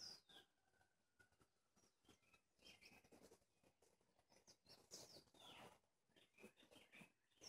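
Near silence, with faint bird chirps: a few short whistled calls that fall in pitch, scattered through.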